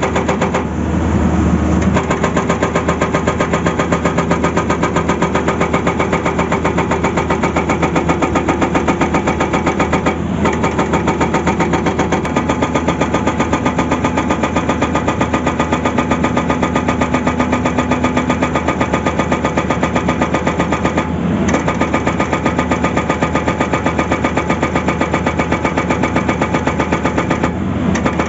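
Excavator-mounted hydraulic rock breaker hammering rock in a rapid, even rhythm, over the steady running of the Tata Hitachi excavator's engine. The hammering pauses briefly a few times.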